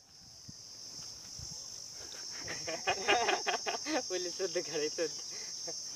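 Steady high-pitched drone of insects in the trees. From about two seconds in, people laugh and chatter over it.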